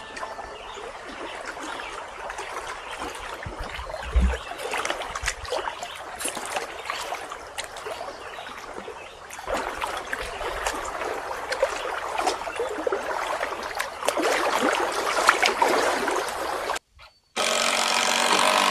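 Lake water lapping and trickling, a steady crackly noise with a low thump about four seconds in; it drops out briefly near the end and comes back louder.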